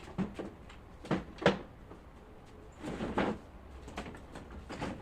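Irregular knocks and clatters of things being handled and set down, several separate thuds with the loudest about one and a half seconds in.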